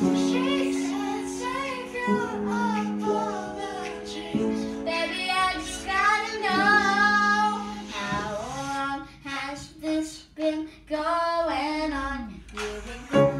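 A young girl singing a pop song to piano accompaniment. In the second half her phrases get shorter, with brief breaks between them.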